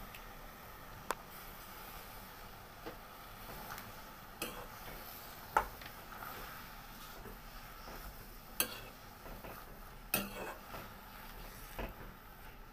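Spoon stirring sliced Sesbania flowers in a metal karahi, clinking against the pan about six times at uneven intervals over a faint steady hiss.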